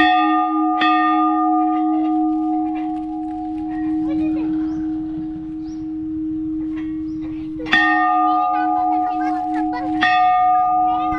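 A large hanging Hindu temple bell (ghanta) is rung by pulling the rope on its clapper. It is struck twice in quick succession at the start, again about 7.5 seconds in, and once more about 10 seconds in. Each stroke rings on in a long, steady hum with bright higher overtones.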